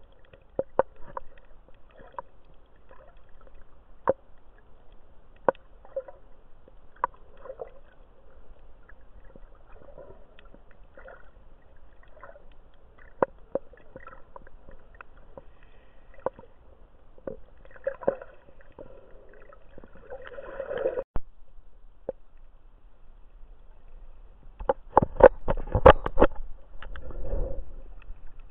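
Underwater sound picked up by a snorkeler's camera: scattered sharp clicks over a faint steady hum. Near the end comes a louder cluster of knocks with water churning.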